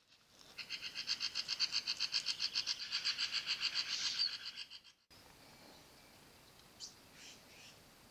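Scimitar babblers calling in a fast, even run of repeated notes, about seven or eight a second, lasting some four seconds and stopping abruptly. A few faint, short bird calls follow.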